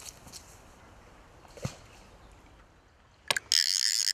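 Quiet water lapping with a few sharp knocks and splashes as a trout is let back into the river. Near the end comes a loud, harsh rasping burst of about half a second that cuts off suddenly: a fly reel's ratchet screaming as a hooked fish takes line.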